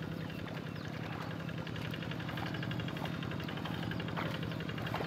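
Two-wheel hand tractor's single-cylinder diesel engine running steadily, with a fast, even clatter over its low hum.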